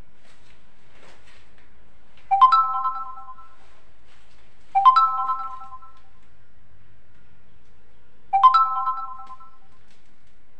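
Electronic notification chime, three quick rising notes that ring briefly, sounding three times: about two and a half seconds in, about five seconds in, and about eight seconds in. A faint steady hum runs underneath.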